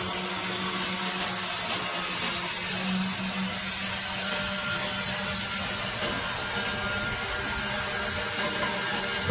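Woodworking power tool running steadily: a continuous high hiss over a low, even hum.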